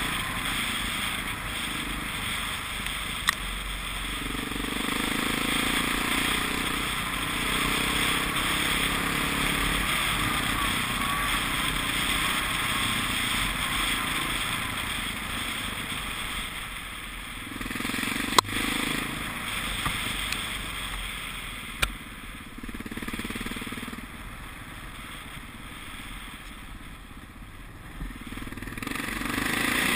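Trail motorcycle engine running as the bike rides along a gravel lane, its note swelling and easing with the throttle, with a few sharp knocks, the loudest about 18 seconds in. It goes quieter through the second half, then grows louder again near the end.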